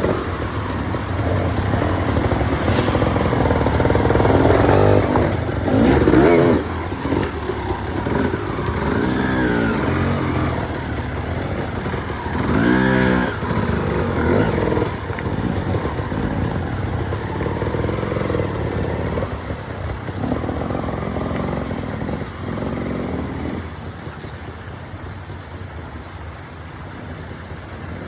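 Off-road dirt bike engine revving up and down several times as it is ridden, getting quieter over the last few seconds.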